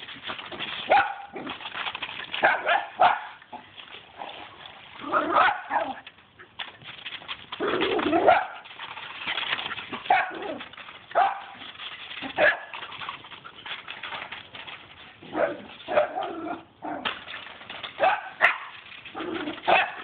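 Small dogs barking excitedly in play, with loud barks coming every second or two.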